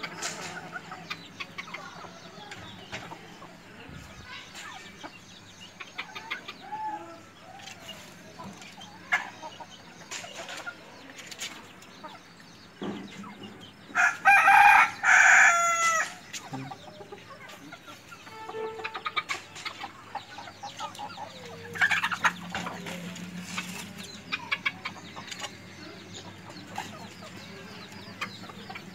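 Chickens clucking on and off, with a rooster crowing loudly once about halfway through, a call lasting about two seconds.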